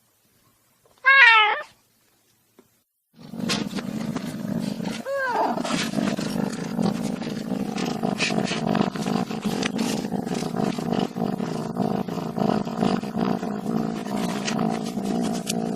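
A cat meows once, briefly, rising then falling in pitch. After a short pause a continuous low, rough cat vocalisation starts, with many small clicks through it and a short meow-like call about two seconds after it begins.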